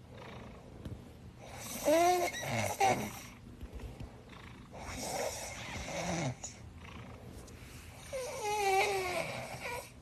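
Kitten snoring in deep sleep: three long snores about three seconds apart, each with a wavering, whistle-like pitch.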